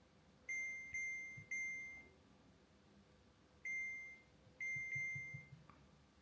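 Gourmia digital air fryer's touch-control panel beeping at each button press as the timer and temperature are set. Six short single-tone beeps: three in quick succession, then one, then two more.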